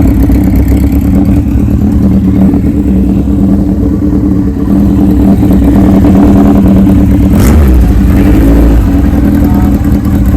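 1978 Kawasaki KZ1000's inline-four engine, fitted with a Wiseco 1045 piston kit and a Kerker header, running steadily. Its note dips briefly about seven seconds in and comes back up.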